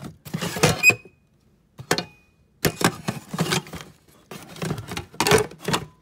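Handling noise: irregular clatter and knocks of Kirby vacuum attachments and a plastic bottle being moved about in a cardboard box, in several short bursts with brief pauses between them.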